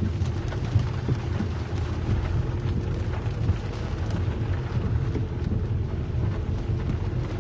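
Heavy rain pattering on a car's windscreen and body, heard inside the cabin, over a steady low rumble of engine and tyres on the wet road.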